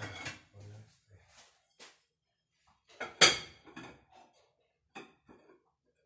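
Kitchen clatter at a stove: scattered knocks of utensils and cookware being handled, with one loud, sharp clank about three seconds in.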